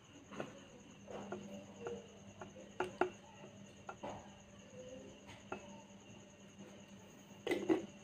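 Water poured from a plastic bottle into a drinking glass, faint splashing with a few light clicks of the plastic bottle, then a short cluster of clicks near the end as the bottle is handled. A cricket's faint steady trill runs behind.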